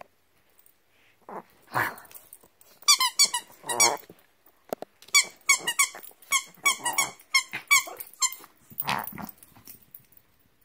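Dog playing with a squeaky toy, squeaking it in quick runs of short, high squeaks, with noisy breaths from the dog in between.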